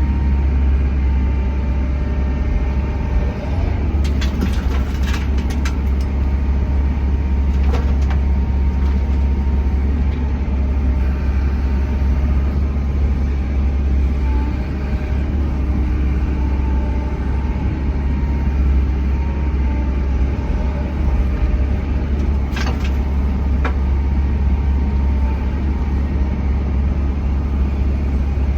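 Diesel engine of a Bobcat E145 compact excavator running steadily under working load while it digs and loads topsoil, with a cluster of sharp knocks a few seconds in and another near the end, typical of the bucket striking and the machine working.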